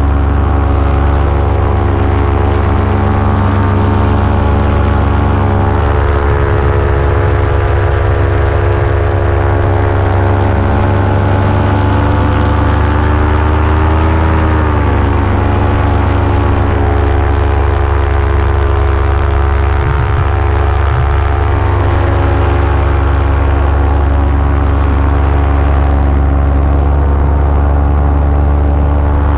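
Paramotor engine and propeller running steadily in flight, heard close from the pilot's harness. About halfway through the engine speed dips briefly and climbs back.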